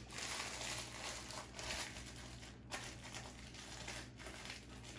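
Soft crinkling and rustling from food and packaging being handled, with a couple of light taps later on.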